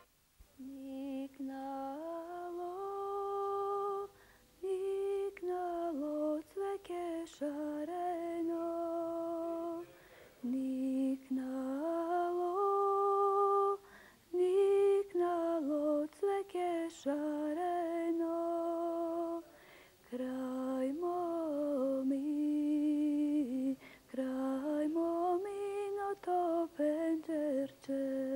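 A woman singing alone and unaccompanied: a slow, lullaby-like melody of long held notes with a slight waver, in phrases of a few seconds with short pauses for breath between them.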